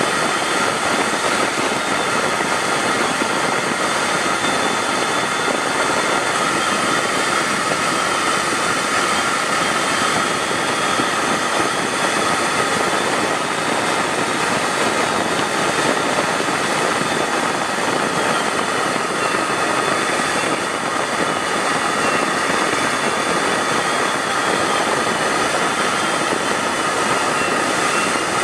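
Steady jet aircraft engine noise in flight, with rushing air and a steady high whine over it that wavers slightly in pitch.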